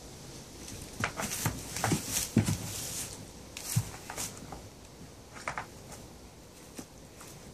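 Goats moving about in straw bedding: straw rustling and hooves shifting, with a cluster of short knocks and thuds a second or two in and a few more later.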